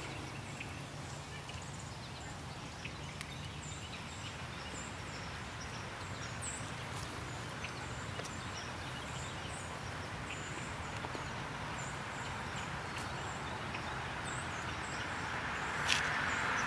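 Quiet rural background: a steady low hum with many small high chirps over it and a few faint isolated pops. A rushing noise, like a vehicle on the road, swells near the end.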